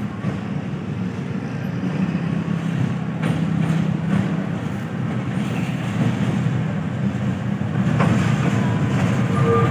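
Diesel-electric locomotive running light at low speed, a steady low engine drone that grows louder as it comes closer.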